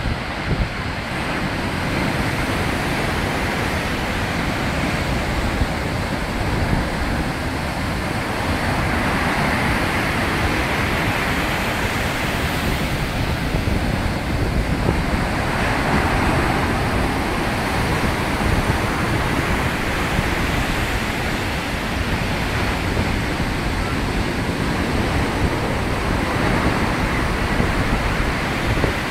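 Heavy surf from a rough sea breaking and washing up the beach: a steady rush of waves and foam that never lets up.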